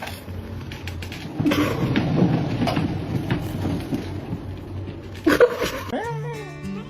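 A muffled rumbling, rustling noise with scattered knocks, then near the end a cat starts meowing, its calls bending up and down in pitch.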